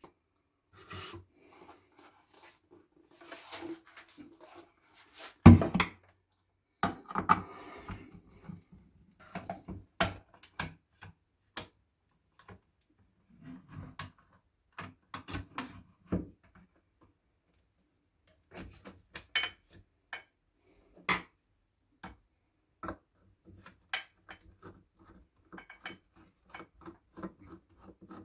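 Silvercrest electric kettle being taken apart by hand to reach its control board: irregular clicks, knocks and short scraping rubs of the housing, with the loudest knock about five and a half seconds in.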